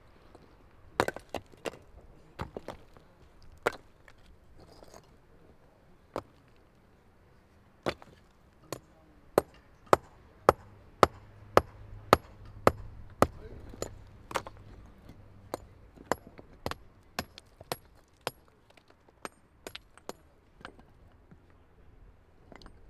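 A hammer striking basalt stone to dress it for a dry stone wall. After a few scattered knocks, the blows come steadily, sharp and ringing, about two a second for around ten seconds, then thin out.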